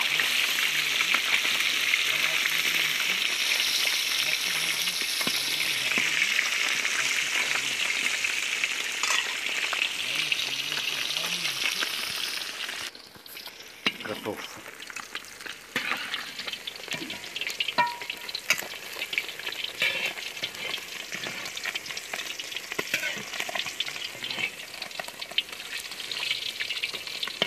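Pieces of fish frying in hot oil in a deep black cauldron: a loud, steady sizzle with spitting crackle. About 13 seconds in it drops much quieter and goes on as a softer sizzle with scattered pops.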